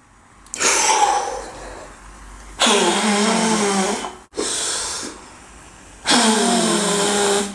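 A man blowing hard at a burning windproof storm match: four forceful blows, the second and last the longest, with his voice sounding through some of them. The flame does not go out.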